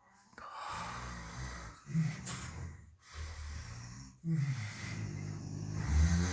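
A sleeping person snoring: a run of rough, low snoring breaths about a second each, with short gaps between them, the loudest near the end.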